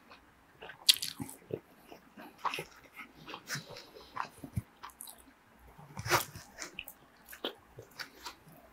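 Close-miked chewing of a shoyu spam musubi: scattered wet mouth clicks and soft crunches of nori and rice, with one louder crunch about six seconds in.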